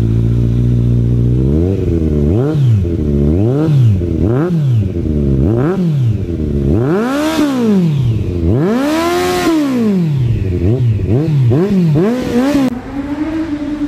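Kawasaki Z900's inline-four engine through a carbon-fibre Akrapovic muffler, idling steadily at standstill and then blipped over and over: a run of quick revs, two longer revs taken higher, then more short blips. About a second before the end the sound changes to a smoother engine note sliding slowly down in pitch.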